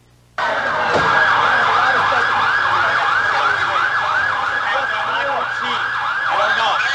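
Emergency vehicle sirens in a fast yelp, sweeping up and down several times a second, with more than one siren overlapping. The sound cuts in abruptly.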